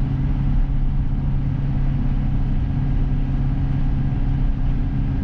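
An M1008 CUCV military truck's 6.2-litre diesel V8 running at a steady cruise, heard from inside the cab as an even low drone.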